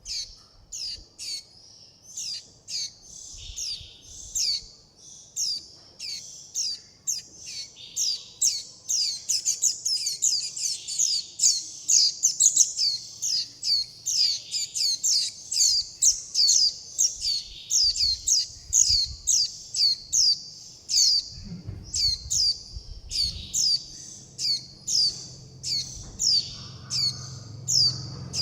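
A young white-eye calling over and over: short, high, downward-sliding chirps, two or three a second. These are the calls a fledgling gives for its parent and for food.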